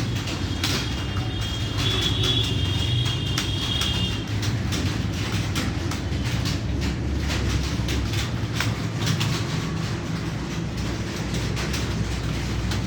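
Computer keyboard typing: quick, irregular key clicks over a steady low rumble, with a brief high whistling tone about a second in.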